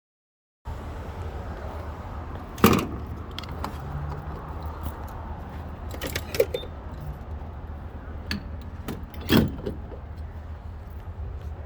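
Steady low rumble of a car, with two loud knocks and several lighter clicks and jingles like keys.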